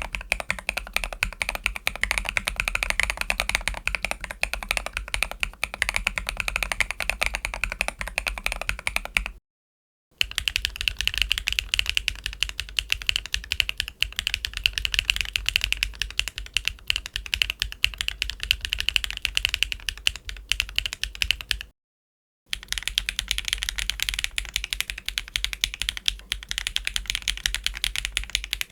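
Fast continuous typing on mechanical keyboards fitted with Wingtree Hitune BM11 tactile switches, a dense run of clacking keystrokes. It comes as three separate takes on different keyboards, cut by brief dead silences about 10 and 22 seconds in. The second take sounds brighter and higher-pitched than the first.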